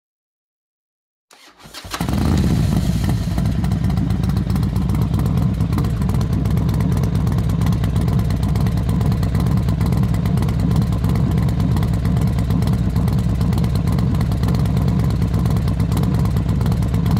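Silent for about the first second and a half, then fading in: a Harley-Davidson motorcycle's V-twin engine running steadily at cruising speed, with wind noise.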